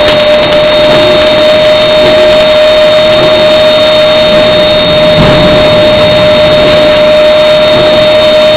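Induction hardening machine quenching an auto shaft: quench water sprays from the ring onto the hot workpiece with a loud, steady hiss over a constant whine.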